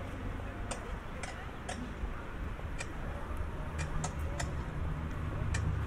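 Footsteps tapping on wet pavement: about eight sharp clicks at an uneven pace, over a steady low city rumble that grows louder near the end.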